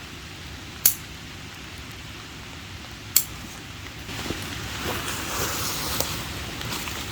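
Hammock gear being handled during setup: two sharp clicks about two seconds apart, then a spell of rustling as the hammock and its snake skin are worked.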